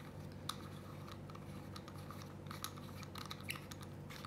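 Irregular small clicks and scrapes of hands twisting the front end off an Acetech Lighter S airsoft tracer unit, over a faint steady low hum.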